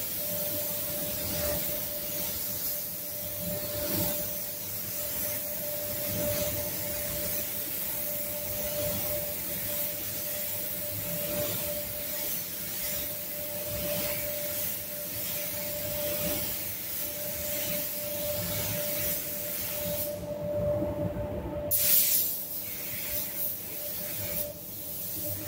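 Gravity-cup paint spray gun hissing as it sprays base coat onto a car door, with a steady hum underneath. The air hiss cuts out once for a second or two about three-quarters of the way through, as the trigger is released between passes, then starts again.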